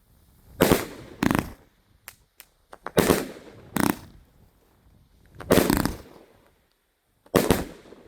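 A 138-shot consumer firework cake firing: about six loud bangs, a second or two apart, one of them longer and drawn out, with a few fainter pops between.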